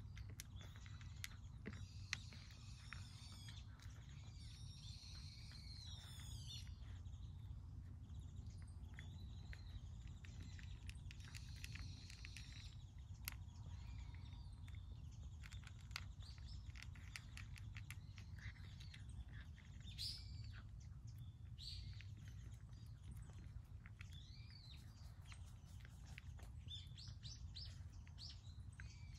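Small birds chirping and twittering on and off, with many soft clicks of a cat crunching dry kibble close by, all quiet over a steady low background rumble.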